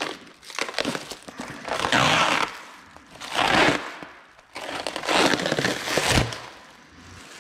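Black plastic stretch wrap crinkling as it is pulled and peeled off a loudspeaker cabinet, in several separate rustling swells.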